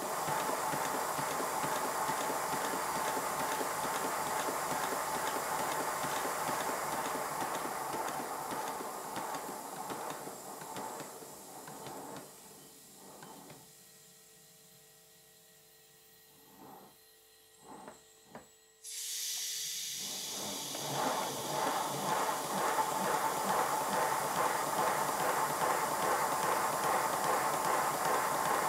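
Model 'Lion' locomotive in 5-inch gauge running on compressed air on a rolling road: a hiss of air with rapid exhaust beats from the cylinders. About halfway through it slows and dies away, a few knocks come from the motion while it stands, and then it starts again with a sudden burst of hiss and runs on.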